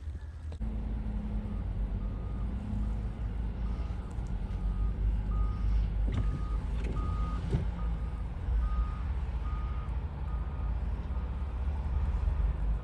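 Vehicle backup alarm beeping at one steady pitch, about two beeps a second, over a loud low engine and road rumble.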